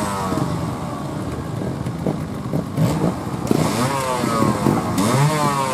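Trials motorcycle engine running under short throttle blips, its pitch dropping back at first and then rising sharply in two quick revs, about three and a half seconds in and again near the end.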